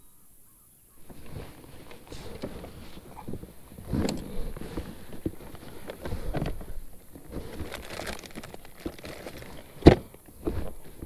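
Fishing tackle being handled in a plastic kayak: rummaging in an open plastic tackle box, with rustling and irregular knocks and clatters of gear against the hull. One sharp clack comes about ten seconds in.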